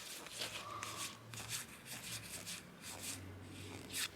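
Trading cards being handled and slid over one another, a string of soft swishes and light clicks.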